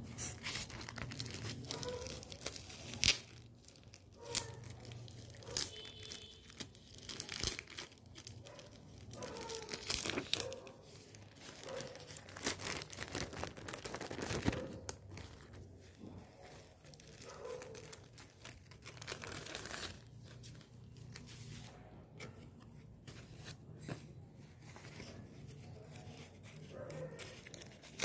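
Paper stickers and a clear plastic bag rustling and crinkling as they are handled and peeled from their backing, with many irregular sharp crackles.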